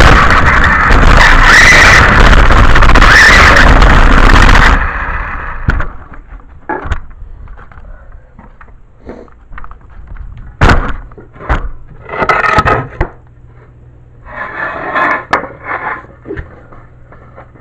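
Radio-controlled toy car driving close by, a loud steady rush of wheels and motor for about five seconds. After that come scattered sharp knocks and short scrapes.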